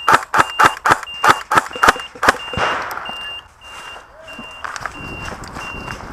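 Suppressed VFC HK416 airsoft electric rifle firing single shots at about four a second, stopping about two seconds in, followed by rustling movement. A faint high electronic beep repeats about every two-thirds of a second throughout.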